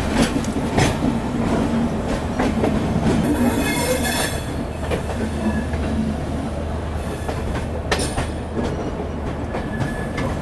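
Passenger train coaches rolling along the track, with steady rumbling and irregular wheel clacks over rail joints and points. A brief high wheel squeal comes about three to four seconds in.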